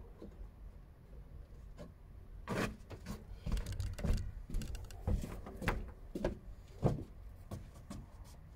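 Scraping and knocking of bricklaying work on a brick oven: mortar being worked and bricks set. About ten short strokes come close together in the middle few seconds.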